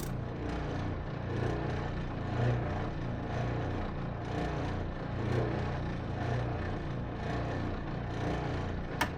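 Bench sander motor running steadily while a wooden piece is pressed against it to clean up the edges, the sound swelling and easing a little as the work is pushed in. A sharp click near the end.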